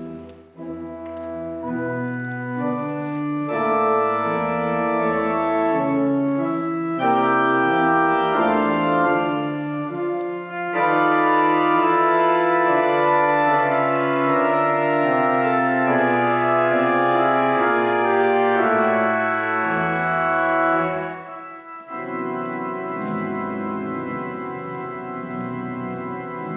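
Pipe organ built by Patrick J. Murphy & Associates playing slow, sustained chords over deep pedal bass notes that come and go. It builds to its loudest in the middle, then drops off sharply a little after twenty seconds into a softer passage.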